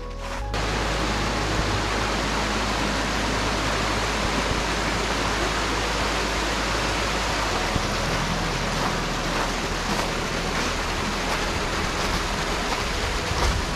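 Small mountain stream cascading over rocks in a little waterfall, a steady loud rush of water that sets in sharply about half a second in.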